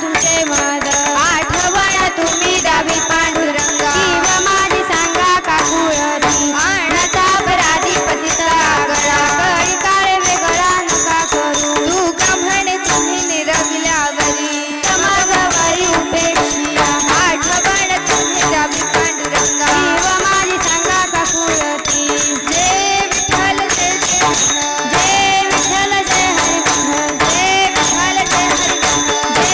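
Marathi Warkari bhajan music: fast, steady metallic hand-percussion with a held drone underneath and a wavering melody line over it.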